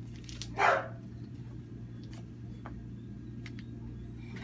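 Faint scattered clicks and ticks of gloved hands handling a urinary catheter and its packaging, over a steady low electrical hum. A short, loud sound of unclear source comes about half a second in.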